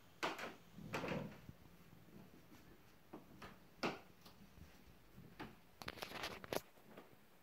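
A few light knocks and clicks over quiet room noise: one about a quarter second in, another near one second, one near four seconds, and a quick cluster of them around six seconds.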